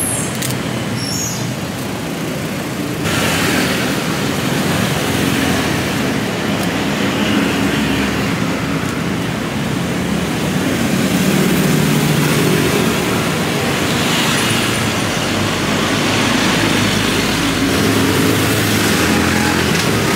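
Street traffic noise: a steady rush of passing vehicles, with an engine hum swelling about halfway through.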